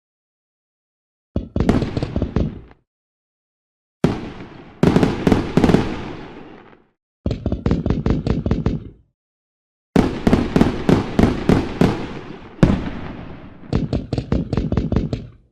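Fireworks going off in four separate volleys of bangs and rapid crackling pops, with dead silence between them; the longest volley comes in the second half.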